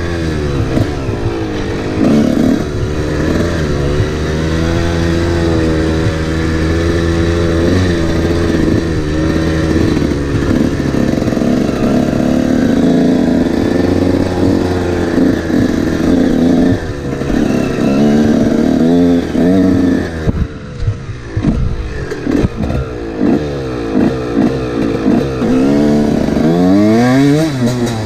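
Honda CR125 two-stroke single-cylinder dirt bike engine on the move, its pitch rising and falling over and over as the rider works the throttle and gears. About two-thirds of the way through the throttle is chopped on and off several times before the engine revs up again near the end.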